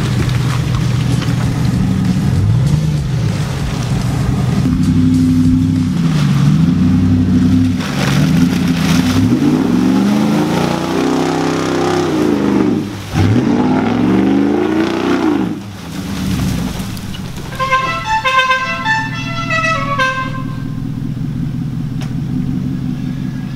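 Lifted pickup truck's engine revving hard as it ploughs through a deep mud hole, its pitch rising and falling again and again as the driver works the throttle. Near the end comes a short run of high tones that step up and down in pitch.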